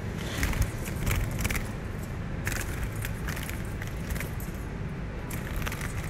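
Steady low outdoor rumble with irregular crackles and rustling clicks from a phone being handled and moved.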